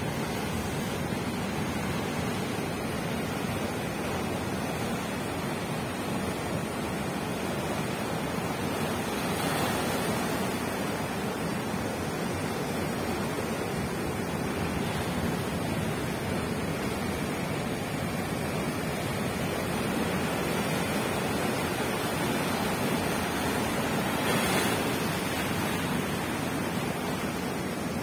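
Ocean surf breaking and washing up over a rocky, sandy shore: a steady rush of water and foam, swelling a little about ten seconds in and again near the end as bigger waves come in.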